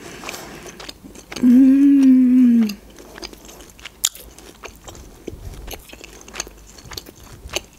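Close-miked chewing of juicy grilled shashlik, with wet mouth clicks and smacks throughout. About a second in comes a hummed, closed-mouth "mmm" of enjoyment, held for over a second, and it is the loudest sound.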